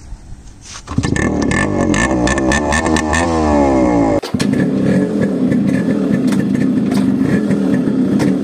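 Yamaha RX two-stroke single-cylinder motorcycle engine revved up, rising in pitch for a few seconds. Then, after a cut, it runs steadily as the bike is ridden.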